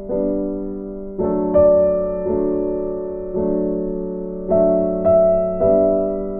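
Background music: a slow, gentle piano tune of held chords, with a new note or chord struck every half second to a second and fading away.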